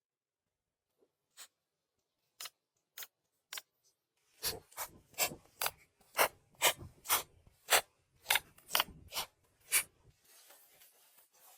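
Short, sharp rasping strokes of a hand tool on wood. A few come slowly at first, then a steady run at about two strokes a second that stops near the end.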